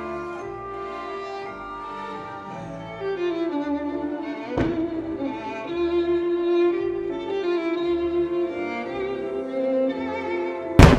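Slow music with held notes. A sharp thump comes about halfway through, likely a shell being launched, and a loud bang near the end as a firework shell bursts.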